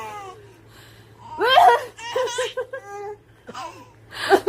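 A six-month-old baby laughing in quick, rhythmic bursts of giggles. An adult's coughs set off each bout of laughing.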